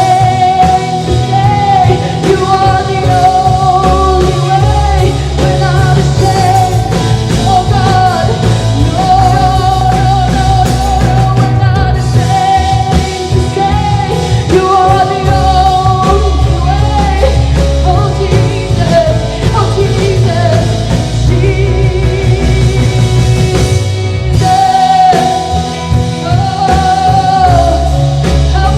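A live rock-style worship band playing, with a singer's voice carrying the melody over electric guitar, bass and drum kit.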